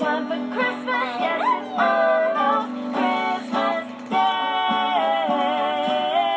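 Music: a song with a singing voice over a steady accompaniment.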